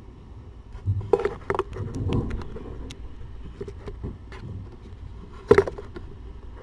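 Handling noise from a handheld camera being moved about: rustles, soft clicks and low thumps, with one louder knock about five and a half seconds in.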